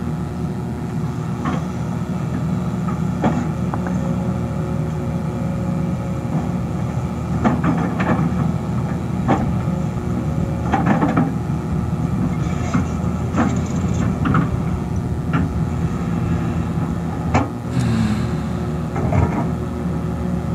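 Excavator engine running steadily under load, with repeated sharp knocks and clanks as it digs among earth and rock.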